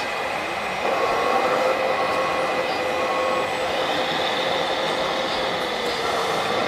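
Radio-controlled Cat D25D articulated dump truck model running its motors and hydraulics as the raised tipper bed comes down: a steady whine that sets in about a second in, with a higher whine joining partway through.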